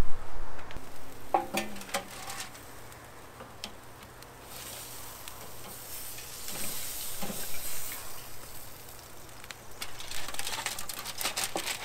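Butter and fish juices sizzling on red drum fillets cooking in a foil pan on a kettle grill. The sizzle swells about four seconds in, when the lid comes off. Clinks of the lid and metal tongs come near the start and again near the end.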